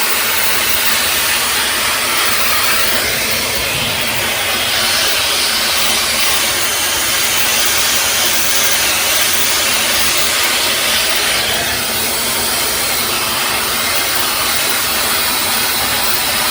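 High-speed hair dryer running steadily, blowing a loud, even rush of air.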